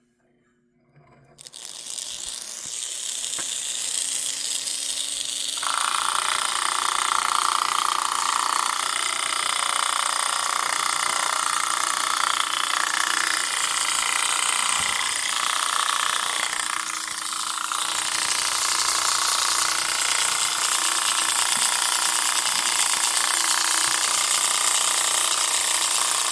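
Marx switcher locomotive's motor running with its built-in rattler, a magnet-and-spring early diesel sound maker, buzzing loudly. It starts about a second in and grows louder about six seconds in.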